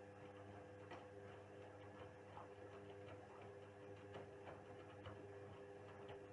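Indesit WISL 62 washing machine running mid-wash: a faint steady hum with irregular light ticks and clicks.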